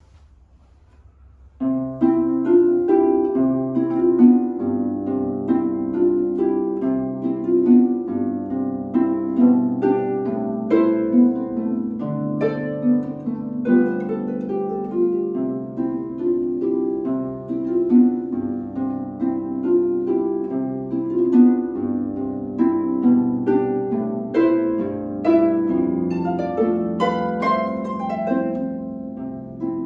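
Concert harp played solo: a steady stream of plucked notes in the middle register over lower bass notes, starting about a second and a half in.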